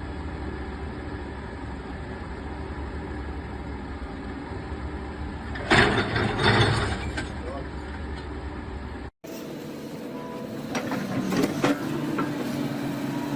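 Heavy vehicle engine running steadily, then a loud clatter of impacts lasting about a second and a half, about six seconds in. After an abrupt cut, another engine runs with scattered knocks.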